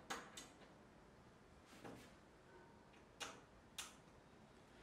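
Near silence with a handful of faint, irregular clicks from a hex key and metal hardware as the M5 bolts holding an MDF spoil board are tightened into the aluminium extrusion's T-nuts.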